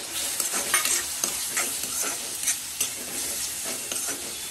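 Spoon stirring and scraping through an onion, tomato and peanut masala in a hot metal kadhai, the mix sizzling in the oil, with many quick scrapes of the spoon on the pan.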